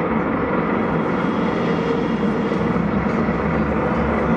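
Motorcycle engines running in a steady drone.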